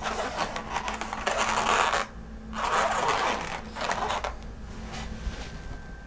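Latex twisting balloons (260s) rubbing and crackling under the hands as the finished balloon sculpture is handled, in two stretches: about two seconds, then about one second.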